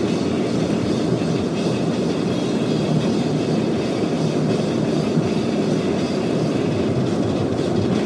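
Steady rumble of road and tyre noise inside a car driving at highway speed.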